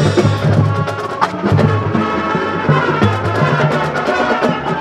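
Marching band playing live: brass carrying sustained notes over drums and front-ensemble mallet percussion, with many quick struck notes.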